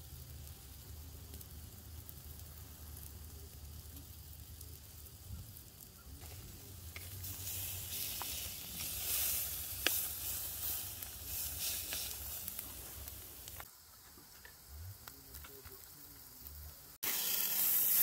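Tri-tip steak sizzling on a stainless wire grill grate over hot campfire coals during the reverse sear. The sizzle grows louder about halfway through, with a few sharp clicks as tongs turn the steak on the grate.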